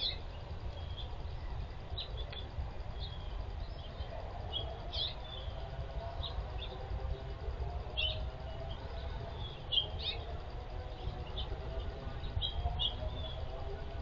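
Wild songbirds chirping in short, high notes scattered irregularly, over a steady low rumble of background noise.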